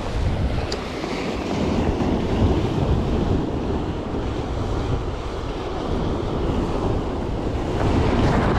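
Wind buffeting the microphone over waves washing against a rock breakwater, a steady rushing noise with a deep rumble.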